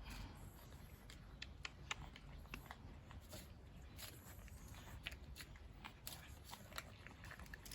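Faint, irregular crunching clicks of cats chewing dry food.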